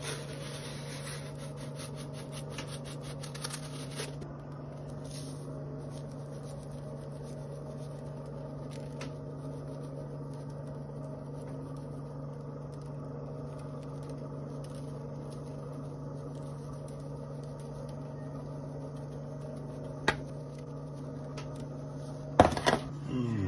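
Dried minced onion rattling in a plastic spice shaker, shaken rapidly for the first four seconds or so. A steady low hum from a kitchen appliance runs underneath throughout, with a single click about twenty seconds in and a short clatter near the end.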